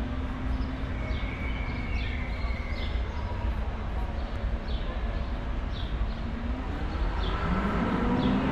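Town street ambience: a steady low rumble of traffic with birds chirping about once a second, and a vehicle engine growing louder as it approaches near the end.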